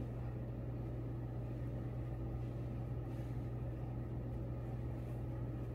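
Steady low mechanical hum with a faint even hiss, unchanging throughout.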